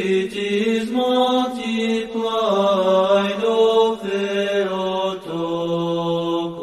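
Voices chanting a hymn in harmony, holding long sustained notes that move to new pitches every second or so.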